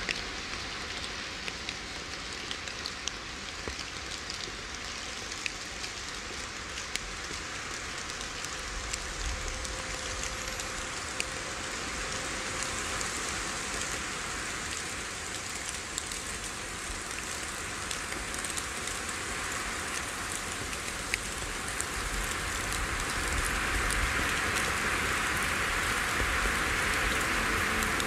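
Small waves lapping and washing over seaweed-covered rocks at the sea's edge, a steady splashing hiss with scattered small ticks, growing louder near the end.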